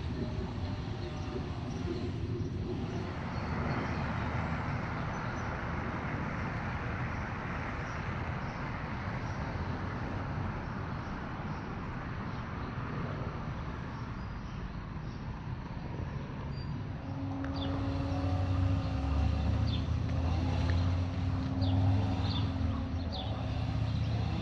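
Vehicle noise: a broad rushing sound like traffic going by, then from about 17 seconds in a nearby engine running with a steady low hum.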